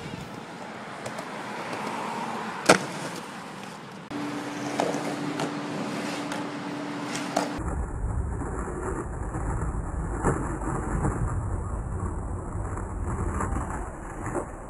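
Faint outdoor noise with one sharp knock about a third of the way in and a steady hum toward the middle. About halfway through, skateboard wheels start rolling over a concrete walkway, a continuous low rolling noise with scattered small clacks.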